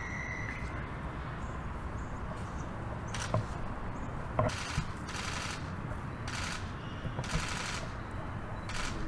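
About five short bursts of rapid clicking, starting about four seconds in, over a steady low background rumble.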